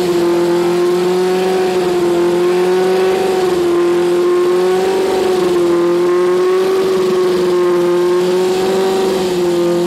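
A Formula Student race car's four-cylinder engine running at a steady, held speed with a slight waver in pitch, during its first runs while being mapped.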